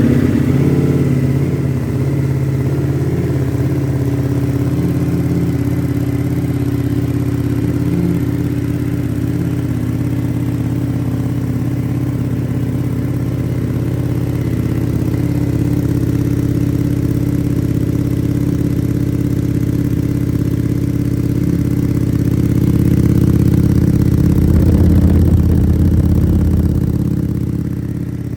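2022 Ducati Panigale V4S's 1,103 cc V4 engine idling steadily just after starting, through a Termignoni exhaust with the dB killer fitted. It gets a little louder for a few seconds near the end, then eases off.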